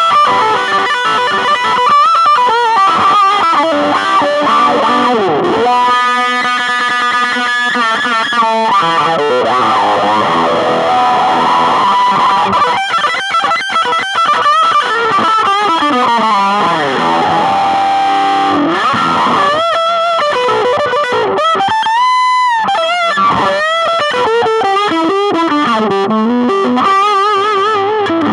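Danelectro '64 electric guitar, played through fuzz and wah pedals into a Marshall Origin 5 five-watt all-tube amp. The tone is heavily distorted and loud, with lead lines whose tone sweeps and wobbles under the wah. A quick run of rapidly repeated notes comes about six seconds in.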